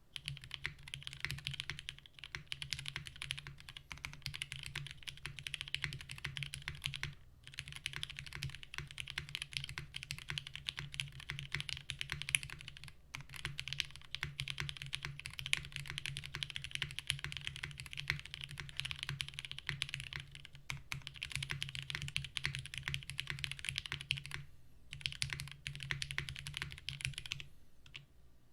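Fast, continuous typing on a gummy O-ring mounted 60% mechanical keyboard with Cherry MX Black Hyperglide linear switches and GMK keycaps. The typing stops briefly a few times.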